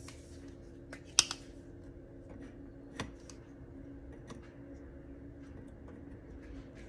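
A rifle scope handled and set down on the rifle's top rail, making a few sharp clicks and light knocks: the loudest just over a second in, another about three seconds in, with small ticks between. A faint steady hum runs underneath.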